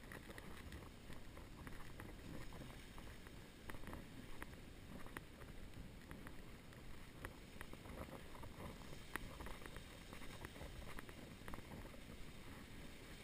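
Faint rumbling wind and handling noise on a camera carried by someone walking, with light, irregular clicks and taps scattered throughout.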